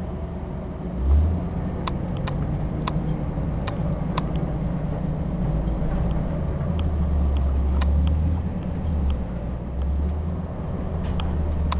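Ford E-Series van with a gas V10 driving, its engine and road rumble heard from inside the cab, swelling a little now and then. A few small sharp clicks or rattles sound through the drive.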